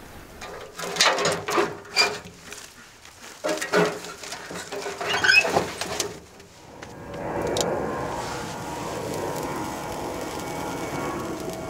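A run of loud knocks and clatters, then from about seven seconds in a fire of thin dry sticks burning in a steel wood-burning stove's firebox with a steady crackle.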